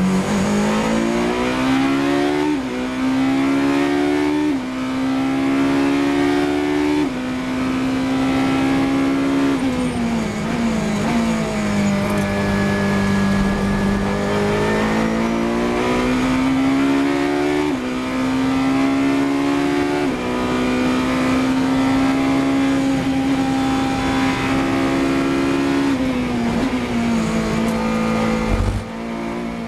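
Ferrari 458 Italia GT3's V8 heard from on board at racing speed. Its pitch climbs and drops sharply at each gear change, with a slower fall and rise about a third of the way in as the car slows for a corner and pulls away again. A short low thump comes near the end.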